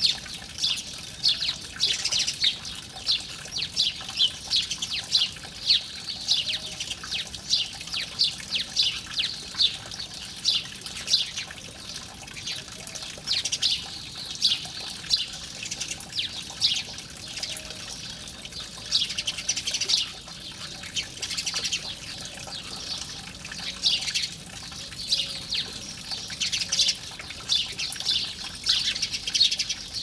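A flock of house sparrows chirping: a continuous chatter of short, quick chirps, several a second.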